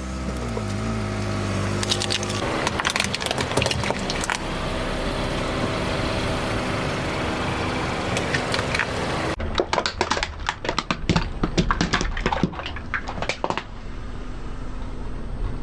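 A car engine running while objects crack and crunch under its tyres. After a cut about nine seconds in, there is a dense run of sharp cracks lasting about four seconds, then the engine goes on alone.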